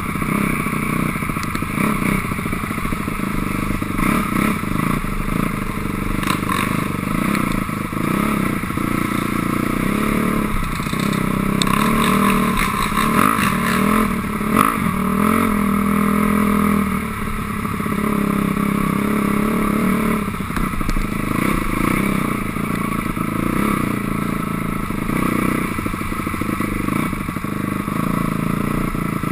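2006 Honda CRF250R's single-cylinder four-stroke engine running as the dirt bike is ridden, its revs rising and falling over and over, heard from the rider's helmet.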